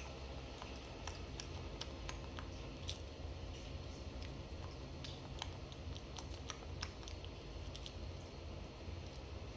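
Baby monkey handling and nibbling a stick of cake: scattered small clicks and crunches at an irregular pace over a steady low hum.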